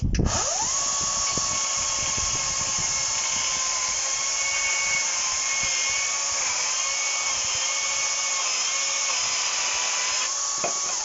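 HYCHIKA 36V brushless cordless chainsaw in eco mode, spinning up with a rising whine and then running at a steady whine while cutting thin wood, its pitch dipping slightly now and then under load. It stops near the end.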